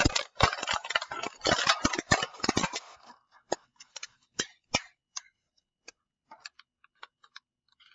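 Scissors cutting through a thin plastic water bottle: a dense run of snips and crackling plastic for about the first three seconds, then scattered clicks and light taps as the cut pieces are handled.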